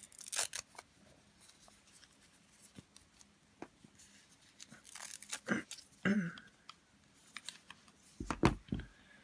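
Hands undressing a plastic fashion doll: light fabric rustles, scrapes and small clicks as the clothes come off. A few louder low thumps near the end as the doll is set down on the cloth-covered table.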